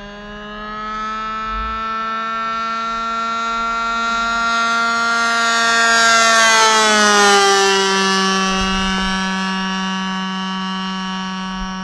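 Engine of an RC Cessna 182 model airplane making a low pass: a steady buzzing note that grows louder, peaks about six to seven seconds in, and drops in pitch as the plane goes by.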